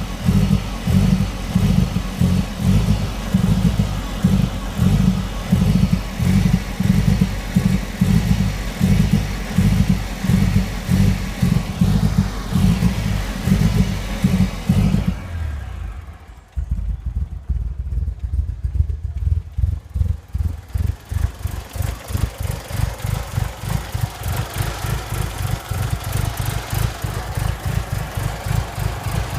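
Mitsubishi Lancer Evolution VIII's turbocharged 4G63 four-cylinder idling lumpily with an uneven, stumbling beat: a misfire, with no check-engine light. About halfway through the sound dulls and dips briefly, and the beat then comes faster and lighter.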